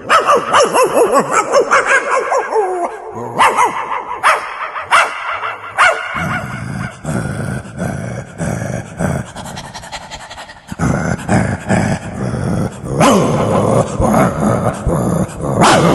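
A man imitating a dog with his voice: gliding whines and yips, then four short sharp barks, then a long rough, pulsing stretch.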